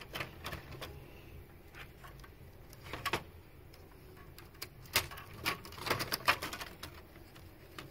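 Scattered plastic clicks and knocks from the DVD board and its ribbon cables being lifted and moved about inside the opened DVD/VCR chassis, with a cluster of sharper clicks between about five and six and a half seconds in.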